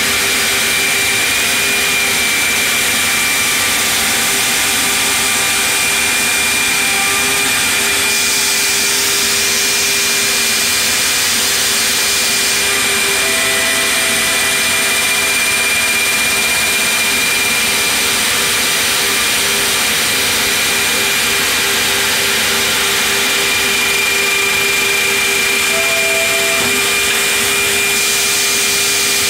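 7-horsepower router spindle of a Builders Automation 5-axis CNC stair routing machine running and cutting into a wooden stair board: a steady high whine over a constant rushing noise of cutting and chip extraction.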